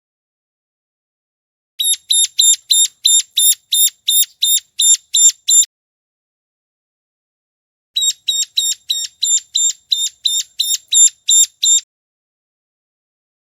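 Ciblek gunung, a prinia, giving its lure call: two bouts of rapid, evenly repeated sharp high notes, about three a second, each bout lasting about four seconds with a pause between.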